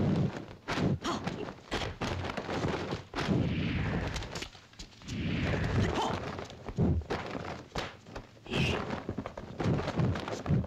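Stylised punch and kick impact sound effects from a kung fu film fight, many short hits in quick succession with a brief lull about halfway through.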